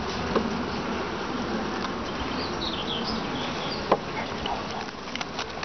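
Honeybees buzzing steadily over an open hive, with a sharp click of a metal hive tool against the wooden frames about four seconds in and a few lighter taps.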